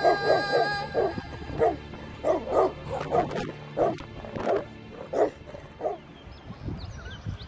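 Tibetan mastiff barking repeatedly, in quick bursts at first and then more spaced out, falling silent near the end. Background music with a held tone stops about a second in.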